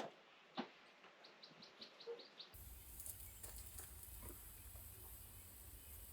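Quiet outdoor morning ambience: a small bird chirps a quick run of short high notes, with a single knock just before. About two and a half seconds in, a steady hiss comes in suddenly.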